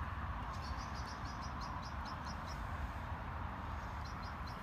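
A small bird chirping in a quick run of high notes, about five a second, then three more near the end, over a steady low rumble.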